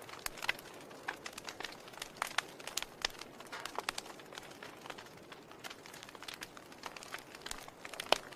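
Wood fire crackling: irregular sharp pops and snaps from burning logs over a soft steady hiss, one of the loudest snaps coming near the end.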